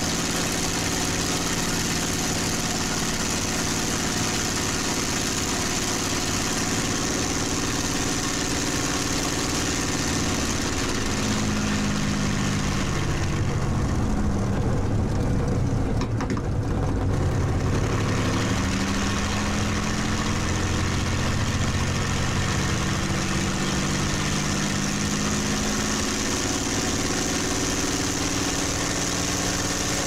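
The Packard Merlin V-1650-7 V12 of a P-51D Mustang running on the ground before takeoff, heard from inside the cockpit. About halfway through, its pitch sinks for a few seconds, then climbs back up and settles.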